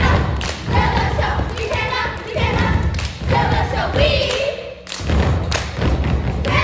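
A group of girls stepping on a stage: repeated heavy stomps on the stage floor, with a group of voices chanting together over them.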